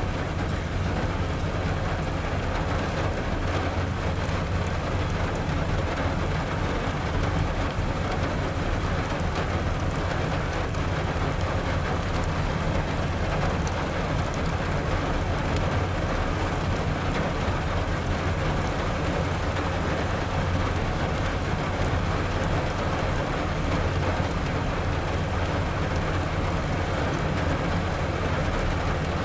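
Steady heavy rain mixed with a continuous low rumble from a BNSF mixed freight train rolling past.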